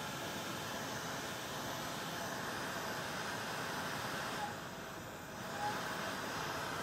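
Handheld craft heat tool blowing hot air steadily to dry watercolour paint on embossed card, briefly quieter a little past halfway before coming back up.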